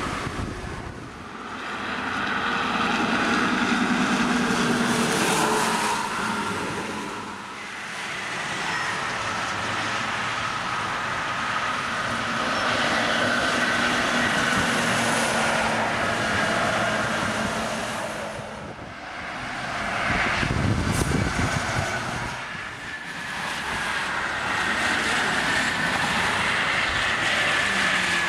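Highway traffic: buses and cars passing one after another on a concrete toll road. Their tyre and engine noise swells and fades several times as each vehicle goes by.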